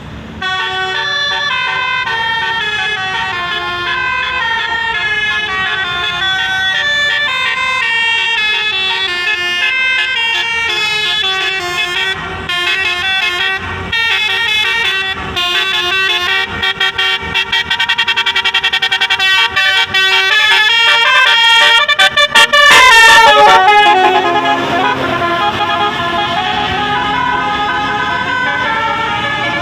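Telolet multi-tone bus horn playing a fast tune of stepped notes. About two-thirds of the way through it switches to rapid on-off blasts and a run of falling pitch sweeps, the loudest part, then settles into longer held chords.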